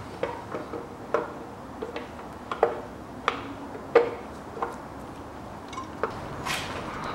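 Aluminium timing-chain cover of a Toyota 1KR engine being worked onto the block, its oil pump fitted onto the crankshaft nose: a run of irregular light metallic clicks and knocks, the loudest about four seconds in.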